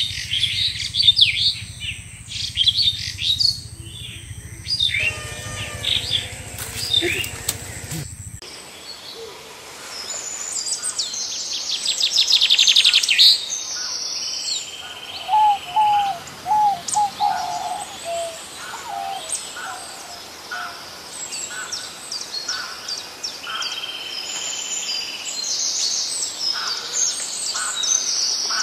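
Many birds chirping and calling together, a mix of quick high chirps and trills. A low steady hum runs under them for the first eight seconds or so, then stops abruptly.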